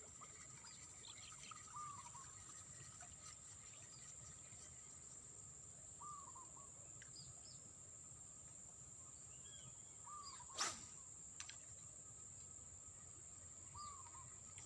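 Faint riverside ambience: a bird gives a short, arched chirp four times, a few seconds apart, over a steady high-pitched drone. A sharp click comes just after the third chirp.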